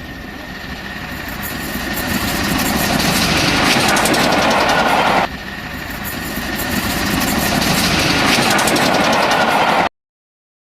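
High-speed train running on rails, a rushing noise that swells as it approaches. It cuts sharply about five seconds in, then builds again and stops abruptly near the end.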